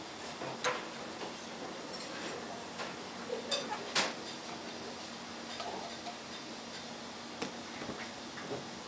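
Light scattered clicks and taps of a kitchen knife and a small spoon against a ceramic plate and a plastic tub as a soft jelly block is cut and topped with sweet beans, the sharpest taps about three and a half and four seconds in. A steady low hum runs underneath.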